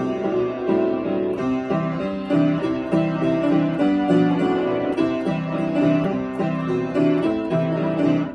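Upright piano played with both hands: a steady, lively stream of notes over a lower accompaniment.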